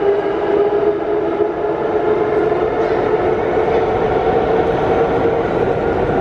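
A series 81 metro train pulling out of the station into the tunnel: a steady electric whine over a continuous low rumble.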